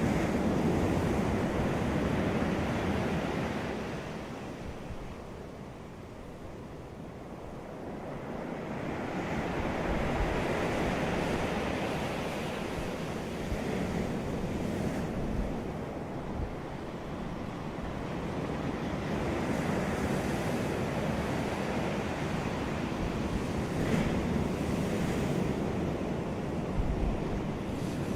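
Sea waves breaking on a beach, the surf rising and falling in slow surges every several seconds.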